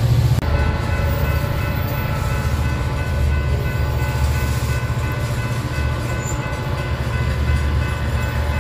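Freight train's hopper and tank cars rolling past, a steady low rumble of wheels on rail. Over it runs a steady high-pitched chord of several tones, held throughout.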